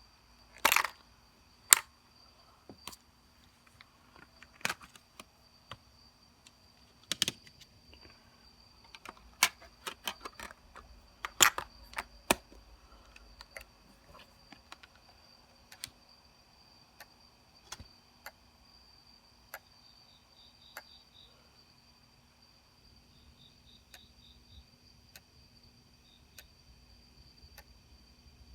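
Sony D-90 Discman portable CD player clicking: irregular sharp clicks, loud and frequent for the first dozen seconds, then fainter and sparser, with a few short runs of rapid faint ticking in the second half.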